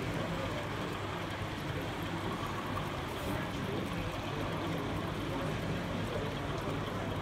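Steady babble of many people talking at once in an exhibition hall, with no single voice standing out.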